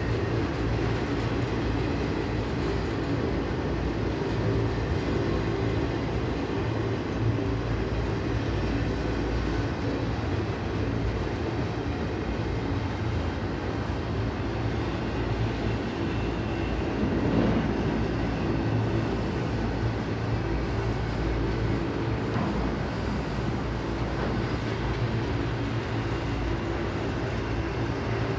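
Double-stack intermodal freight train rolling slowly past: steady rumble of the well cars' wheels on the rails, with a brief louder swell about seventeen seconds in.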